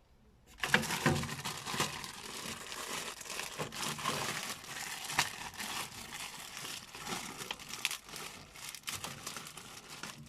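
Plastic packaging crinkling and rustling as it is handled and unwrapped, starting about half a second in and carrying on with many small sharp crackles.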